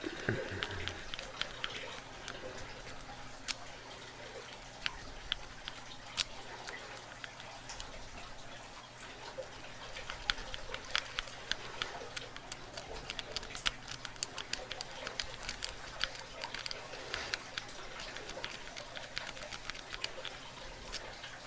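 Peterson snake rake working the pins of a Kwikset pin-tumbler lock: faint, irregular small metallic clicks and scratches as the pins are raked and set.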